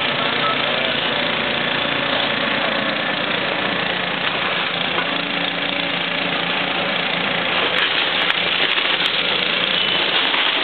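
Caterpillar 320-series excavator's diesel engine running steadily as it works, with a water hose's spray hissing over it and sharp cracks near the end.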